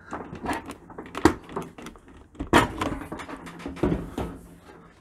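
Stainless steel outer door panel of a Bosch dishwasher being pulled off, its clips letting go with a series of sharp knocks and clacks and metal rattling. The sharpest knocks come about a second in and near the middle, with a further cluster near the end.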